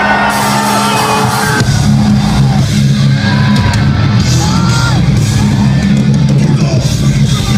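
Melodic death metal band playing live, loud and dense with heavy low guitar notes, recorded from within the crowd in a large hall, with audience yells over the music.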